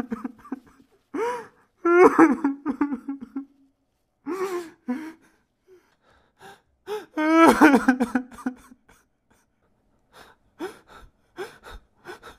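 A person crying, several bursts of sobbing with gasping breaths and wavering voice, then a few shorter, quieter sobs near the end.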